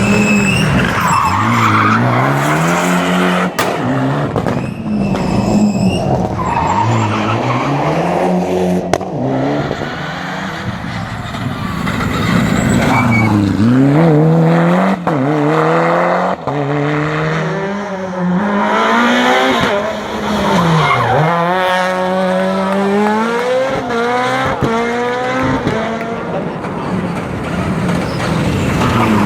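Rally car engines at hard throttle, revving up through the gears with sudden drops at each shift and lift, with tyres squealing and a few sharp cracks.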